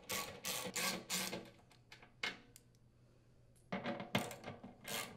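Ratchet wrench with a 3/8-inch socket clicking as it unthreads the blower motor's bracket mounting screws. The clicks come in quick runs, with a pause of over a second in the middle.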